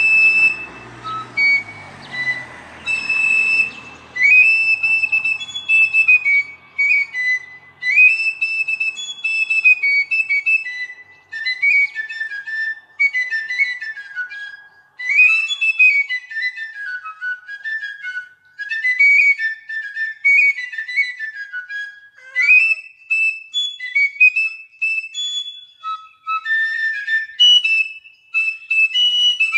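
Fife played solo: a high, bright melody of short repeated phrases, with some notes slid up into at the start of a phrase.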